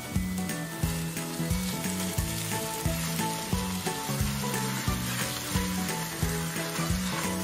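Ground turkey and onion sizzling as they brown in an enameled Dutch oven, with spatulas stirring and breaking up the meat. Background music with a steady beat of about two thumps a second plays over it.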